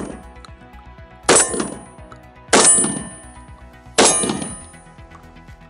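Three shotgun shots about one and a half seconds apart, each dying away in a short echo. The last of the two buckshot rounds is followed by two lighter target loads. The echo of a shot fired just before is fading at the start.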